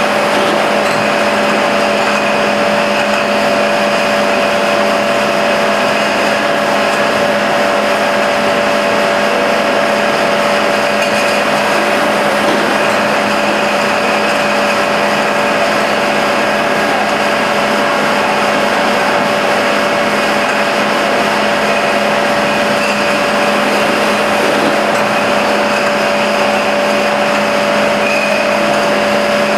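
Automatic glass bottle washing machine running: a steady mechanical hum with a constant whine over an even hiss.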